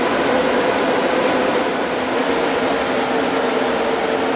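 Sun E10000 server's cooling fan trays running loud and steady with a whine, which drops slightly in pitch about two seconds in: the fans spooling down a little as the server links up with its System Service Processor.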